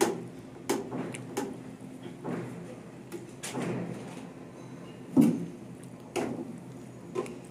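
Several irregular knocks and clacks of plastic as a concealed diverter body is pressed and seated onto plastic pipe fittings to check its fit.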